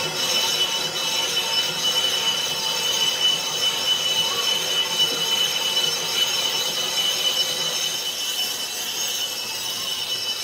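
Metalworking machinery running steadily with a high-pitched metallic squeal made of several held tones over a grinding hiss.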